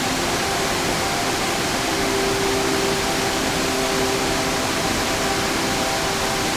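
Mountain stream rushing over rocks in a steady, dense rush of water. Under it runs a faint, steady hum of several held tones that slowly swells and fades.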